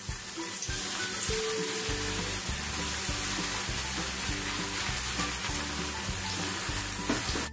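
Thin raw potato slices sizzling steadily as they fry in hot oil in a steel kadai, with more slices being dropped in. Background music comes in about two seconds in.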